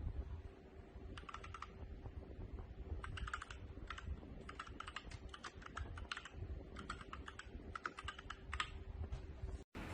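Typing on a mechanical keyboard fitted with clear OEM-profile keycaps: runs of quick key clicks broken by short pauses.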